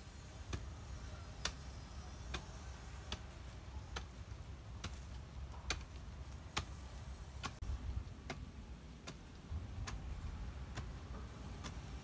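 Sharp ticks repeating about once a second, over a low steady rumble.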